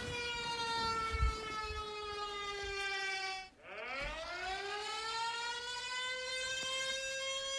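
Siren-tone alarm clock going off with a wailing, air-raid-style pitch. It sinks slowly, cuts out about three and a half seconds in, then winds back up and holds.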